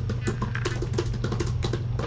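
Typing on a laptop keyboard: quick, irregular key clicks, about eight to ten a second, over a steady low hum.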